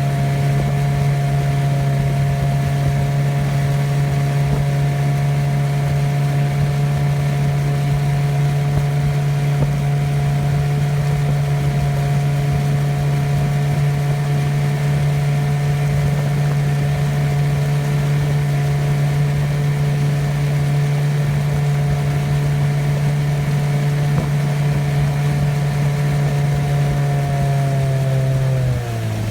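1965 Evinrude Sportwin 9.5 hp twin-cylinder two-stroke outboard running at a steady throttle under way, then throttled back just before the end, its pitch falling. It runs well enough that the owner thinks it needs no more tune-up work.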